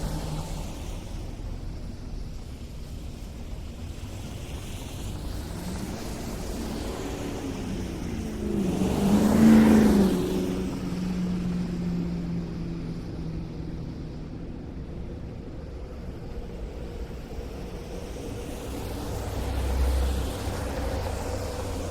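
City street traffic on snowy streets: a steady low rumble of cars, with one vehicle passing close and loud about halfway through, its engine hum rising and fading, and a smaller swell as another vehicle passes near the end.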